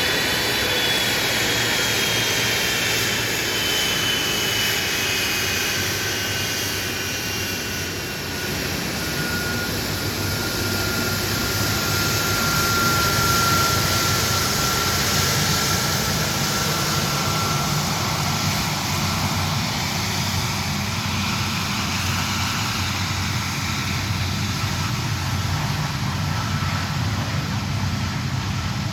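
Jet aircraft engines passing: a steady roar with high engine whines that slowly fall in pitch, and a low rumble that grows stronger in the second half.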